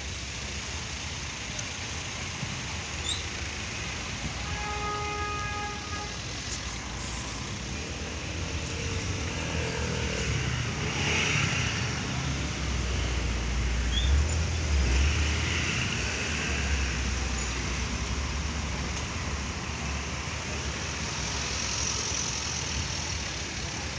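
Urban street traffic noise as a towed tram passes slowly along its rails. A short horn note sounds about five seconds in, and a heavier low rumble rises around the middle.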